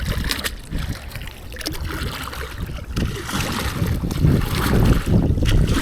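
Water sloshing and trickling as a freshly magnet-fished metal piece is swished and rinsed in the water to clean it, with wind rumbling on the microphone.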